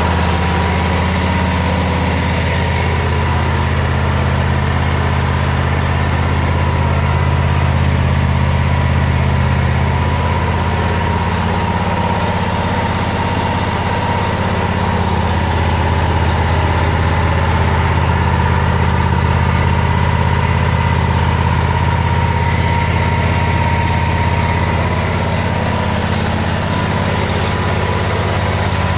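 Engine of a 2012 Exmark Turf Tracer walk-behind commercial mower idling steadily, a low even hum.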